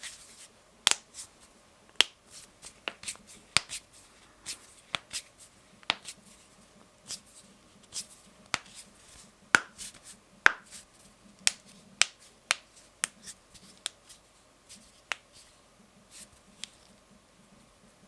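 Knuckles cracking: a long run of sharp, separate pops at uneven intervals, sometimes several a second, with a few much louder cracks.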